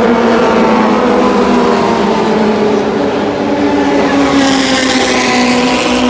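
Racing car engine at high revs passing by, its pitch falling slowly; a rush of higher hiss comes in a little after four seconds.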